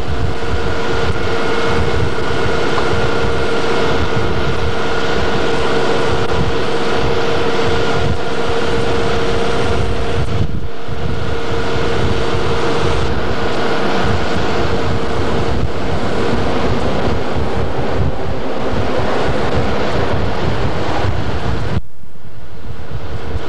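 Boat engine running under way, a steady hum under heavy wind noise on the microphone. The sound drops out briefly twice, about ten seconds in and near the end.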